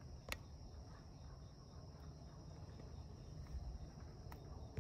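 Faint outdoor ambience: a steady high-pitched insect chorus over a low rumble, with a light click shortly after the start and a fainter one later.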